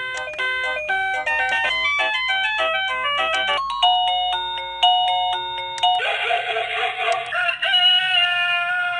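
Liztek plug-in wireless doorbell receiver playing through its small speaker while it is switched through its selectable chime sounds: first a quick electronic melody, then a slower tune of held chime notes, then about six seconds in a different, harsher recorded animal call that dips in pitch at the end.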